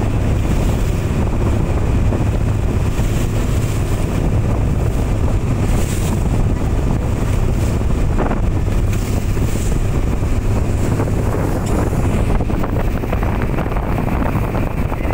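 Boat engine running steadily, a constant low rumble, with wind buffeting the microphone and water washing past the hull.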